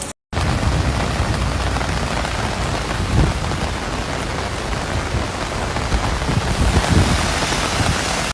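Heavy rain falling steadily: a dense, even hiss with low rumbling underneath. It starts after a split-second gap.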